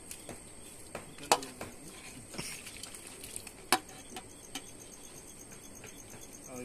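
A knife scraping the charred skin of a singed chicken in a steel bowl, with scattered small ticks and two sharp knocks, about a second in and just before four seconds in. Insects chirp steadily and faintly behind.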